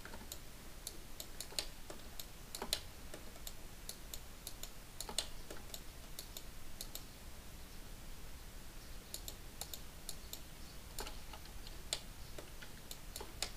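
Quiet, irregular clicks and taps of a computer keyboard and mouse in use, some single and some in quick clusters.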